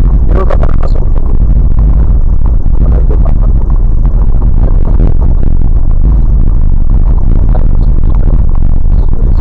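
Vehicle driving over a rough, snow-covered dirt track, heard from inside the cab: a loud, steady low rumble with occasional knocks and rattles, strongest about half a second in.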